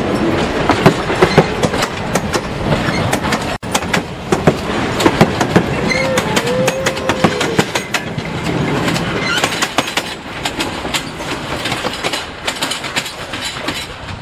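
Wooden-era passenger coaches rolling past close by, their wheels clicking and clattering over the rail joints, with a short squeal from the wheels about six seconds in. The clatter eases toward the end as the train moves away.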